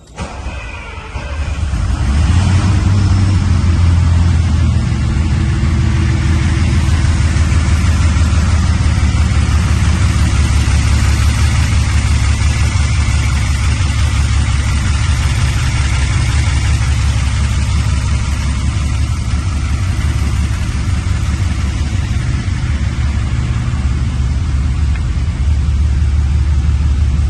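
Lamborghini Countach V12 engine, freshly rebuilt, starting up about two seconds in, running a little faster for a few seconds, then settling into a steady idle as it warms up.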